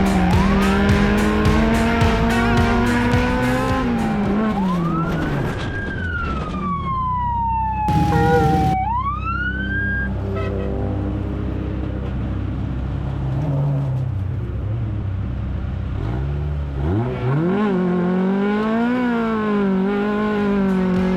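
Off-road race car engines revving and passing. The pitch climbs, falls away and climbs again as the cars go through the gears, and near the end an engine revs up quickly and holds a wavering pitch.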